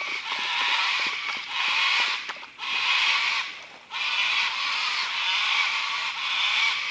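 Cockatoos screeching: harsh, grating calls repeated in bouts of about half a second to a second, one after another with short breaks.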